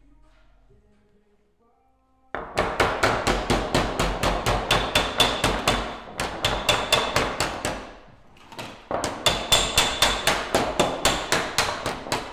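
A hammer striking metal in quick, even blows, about five a second, in two long runs with a short break between them; the blows ring like sheet-metal body panel work.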